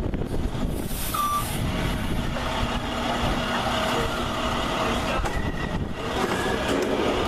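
An ambulance's engine running steadily as the ambulance moves slowly close by, with one short beep about a second in.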